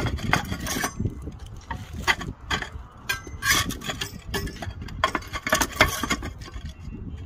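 Roof tiles knocking and scraping against one another as a tile is worked back into its row by hand, an irregular run of sharp clacks and scrapes, over wind rumbling on the microphone.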